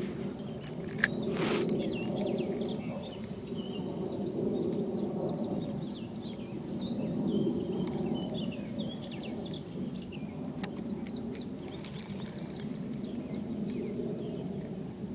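Birds chirping and singing over a steady low outdoor rush. There is a sharp click about a second in and a brief whoosh just after it.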